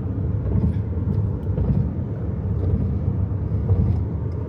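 Car driving on a freeway: steady low road and engine rumble.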